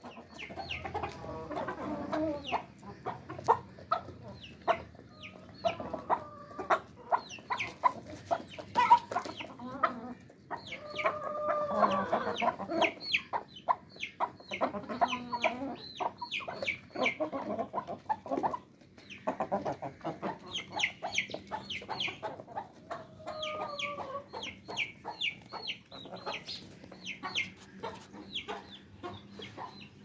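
A flock of Thai gamefowl chickens clucking, with longer calls at about a third and three-quarters of the way through. Throughout there is a quick patter of sharp taps as their beaks peck at the concrete floor.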